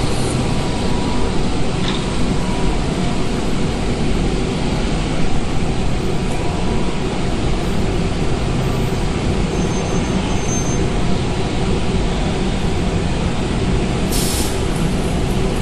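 Veneer press dryer running: a steady, loud mechanical drone with a constant low hum, and a short hiss near the end.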